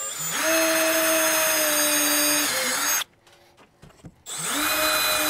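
Cordless drill with a 1/4-inch bit drilling pilot holes through the Jeep's fiberglass hard top. It runs in two bursts of about two and a half seconds, with a short pause between and the second starting about four seconds in. Its motor whine drops slightly in pitch partway through each burst.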